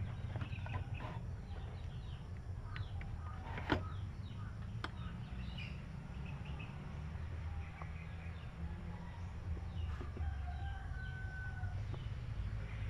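Chickens clucking and calling, with one longer held call near the end, over a low steady hum. There are a couple of sharp clicks a few seconds in.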